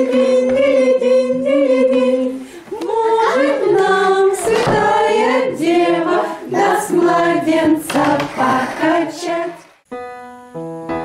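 A group of women and young children singing a song together, unaccompanied. Near the end the singing stops and piano music begins.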